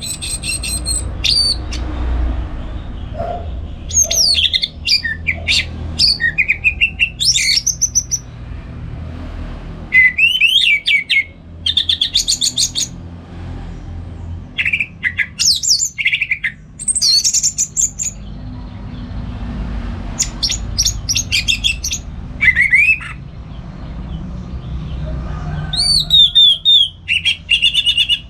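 Orange-headed thrush singing its full, varied song: phrase after phrase of whistled notes, sliding notes and rapid trills with short pauses between them, over a steady low background rumble.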